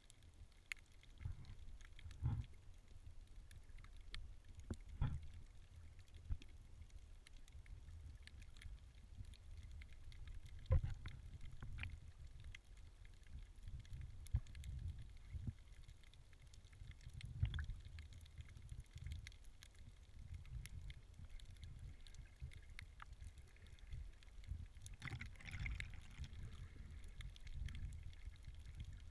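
Underwater sound picked up by a snorkeler's camera: a low, muffled rumble of moving water with scattered clicks and a few sharper knocks, and a short hiss late on.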